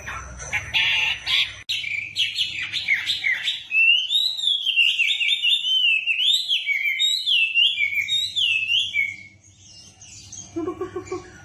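Chinese hwamei (wambi) singing loudly: a burst of rapid chattering notes, then a run of clear whistled phrases that slide up and down in pitch, stopping about two seconds before the end. A few short low notes follow near the end.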